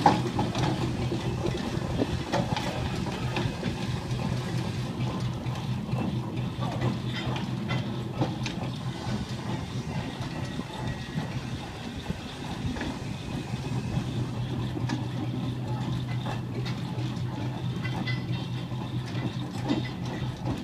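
Clayton and Shuttleworth steam traction engine running along the road, its exhaust chuffing in a quick even beat over a steady low hum.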